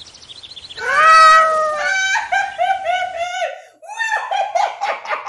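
High-pitched human screaming and wailing: a long drawn-out cry about a second in, followed by a string of shorter wavering wails.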